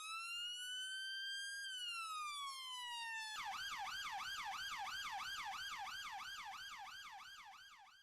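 Electronic police siren: a slow rising and falling wail that switches about three seconds in to a fast yelp of about four sweeps a second, fading out near the end.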